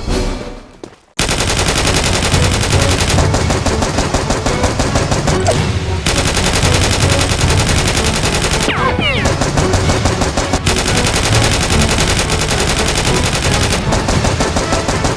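Rapid automatic gunfire in long continuous bursts of machine-gun fire, starting abruptly about a second in after a brief drop to quiet.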